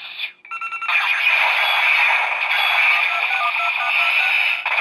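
Electronic finisher sound effect from a DX Gangan Saber toy with a Cobra Keitai phone attached, played through the toy's small speaker after its trigger is pulled: a steady explosion-and-slash noise. Phone-dialing beeps from the Cobra Keitai run through it around the middle.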